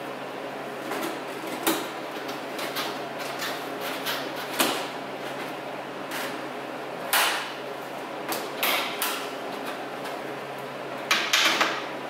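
Plastic parts at the front of a BMW E46's engine bay being handled and fitted by hand: scattered clicks and knocks, with a quick cluster of clicks near the end, over a steady low hum.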